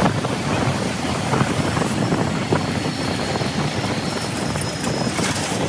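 Ride noise heard from the back seat of a moving motor scooter in dense motorbike traffic: a steady rumble of engines and road noise, with wind rushing over the microphone.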